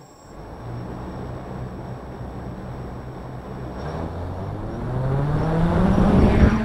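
F450 quadcopter's motors and propellers spinning up: a whirring hum starts suddenly, then rises steadily in pitch and gets louder over the last few seconds as the throttle is opened.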